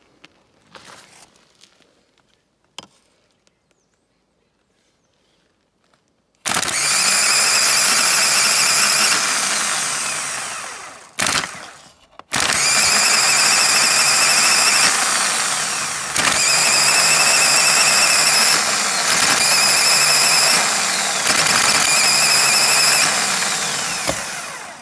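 VW T4 starter motor out of the van, powered from jump leads and spinning with no load: a loud whine that starts about six seconds in, winds down after four or five seconds, then runs again for about twelve seconds. Not the best sounding starter motor, but it works: nothing wrong with it.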